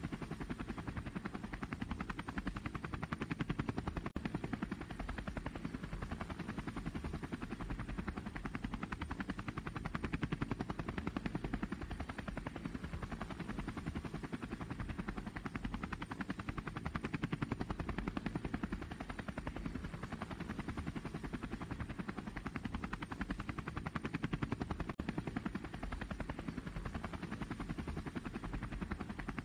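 DJI Phantom quadcopter's motors and propellers buzzing steadily in flight, rising and falling slightly in level every few seconds, with a thin, steady high whine above.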